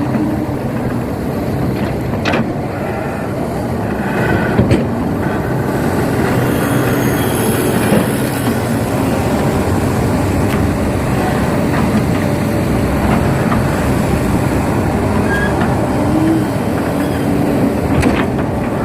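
Excavator running steadily while it works, its engine and machinery making a continuous rumble, with a few sharp knocks.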